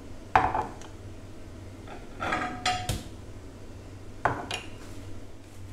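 Glass mason-jar mugs with metal lids being set down one after another on a stone countertop: a sharp knock about half a second in, a few clinks, one with a short ring, around two and a half seconds, and another knock just past four seconds.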